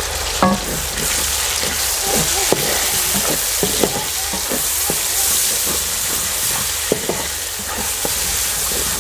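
Onions, tomatoes and green chillies sizzling in oil in a metal kadai while a wooden spoon stirs them, with frequent short knocks and scrapes of the spoon against the pan.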